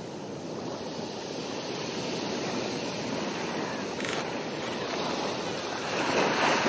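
Sea waves washing on a shore: a steady rush, swelling louder as a wave comes in near the end.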